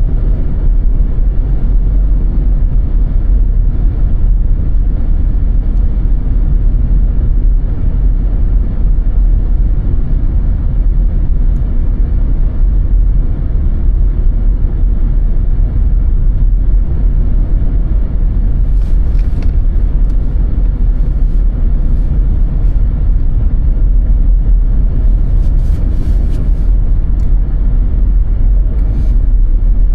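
A car driving on snowy roads, heard from inside: a steady, loud low rumble of tyres and engine, with a few faint clicks a little past the middle and again near the end.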